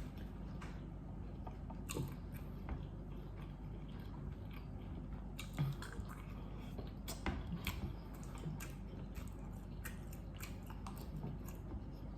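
Close-miked chewing and eating mouth sounds from a seafood boil: soft wet smacks and clicks, coming irregularly, with a run of louder ones in the middle.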